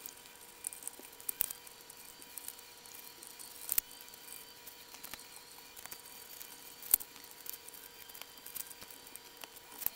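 Hands turning a tin can and pressing pieces of paper onto it: faint rustling with scattered light clicks and taps, the sharpest about seven seconds in, over a faint steady hum.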